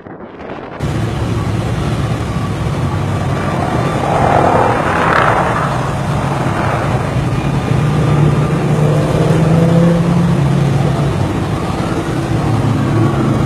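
Jet engines of a low-flying DC-10 air tanker passing over, a loud steady rush with a whine that rises and then falls away as it goes by, about five seconds in.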